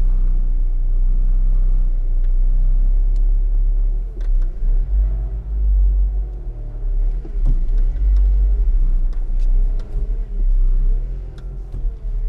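Four-cylinder Ford Ranger pickup running while towing a trailer, a steady low rumble. From about four seconds in the engine note wavers, rising and falling.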